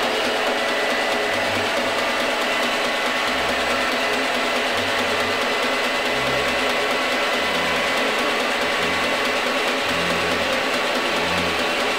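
Small milling machine's spindle motor running steadily at speed with an even whine while a drill works into a brass valve guide-cover.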